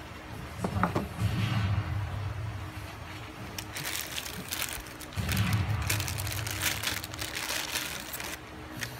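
Clear plastic bag crinkling in many quick rustles as a condenser microphone is pulled out of it, from about three and a half seconds in until near the end. A low muffled background sound comes and goes under it.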